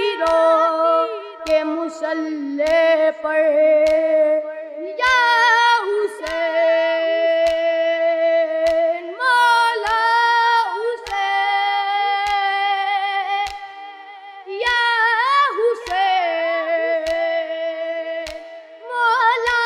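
A boy's high singing voice performing a naat, drawing out long held, wavering notes with no clear words. Under it runs a steady beat of short clicks, a little under two a second.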